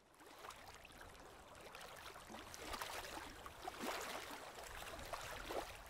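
Faint crackling, fizzing noise, many small clicks over a hiss, swelling and then fading: the sound effect laid under an animated logo end card.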